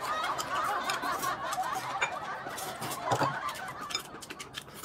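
A busy, warbling background track laid over the scene, with short clicks of noodle slurping and chopsticks.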